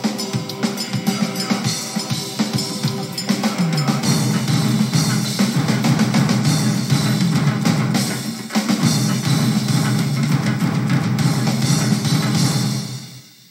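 Soundtrack music with a drum kit and a moving bass line, fading out near the end.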